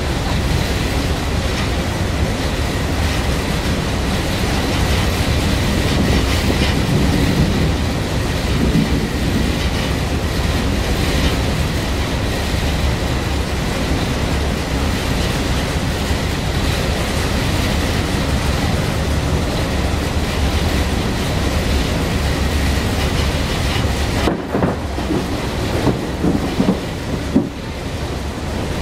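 Steady rumble and rushing noise of a boat underway crossing the harbor, with a faint steady high whine. The sound dips abruptly about 24 seconds in and then runs more unevenly.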